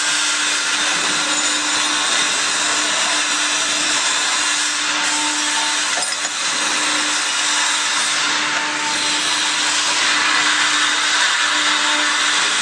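Loud, steady whirring noise of machinery running, with a constant low hum underneath.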